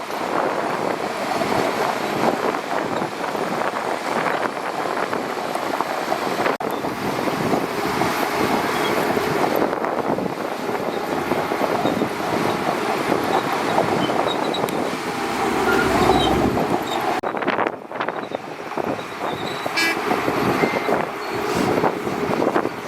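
Shantui DH17C2 bulldozer's diesel engine running steadily, swelling briefly about sixteen seconds in.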